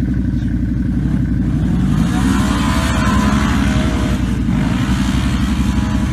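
Off-road vehicle's engine running hard and revving up about two seconds in, with a rush of noise that swells and fades over the next couple of seconds.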